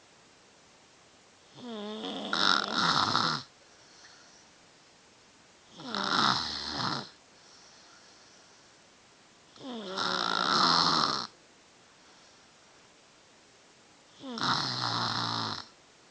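A three-year-old child snoring: four loud snores about four seconds apart, each lasting a second or so, with quiet breathing in between.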